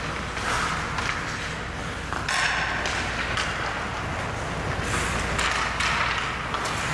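Ice hockey play: skate blades scraping and carving the ice, with sharp clacks of sticks and puck throughout.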